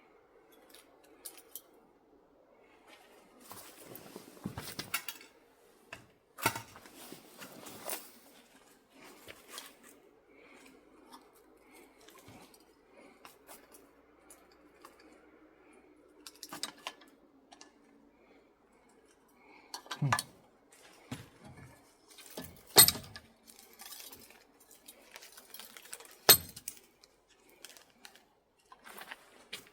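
Metal clinking and scraping as copper winding is pried and pulled out of an old electric motor by hand, with rustling of the wire and a few sharper clanks against the metal housing.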